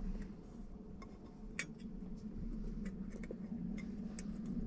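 A few small, sharp clicks and clinks of a glass headlight lens and its metal rim being turned and seated by hand, the loudest about a second and a half in, over a steady low background hum.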